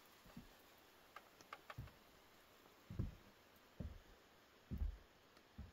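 Boots walking on wet wooden deck boards, a dull footstep about every second. A few faint sharp clicks come about a second and a half in.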